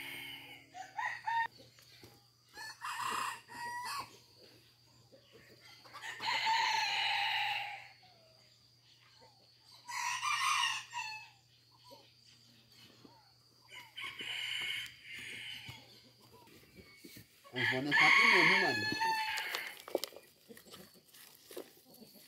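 Rooster crowing several times, about five crows a few seconds apart, the ones near the middle and near the end the loudest.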